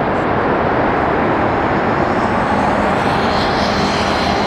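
Jet noise from a Boeing 747 freighter's four turbofan engines as it rolls along the runway: a loud, steady rush, with a high whine growing stronger in the second half.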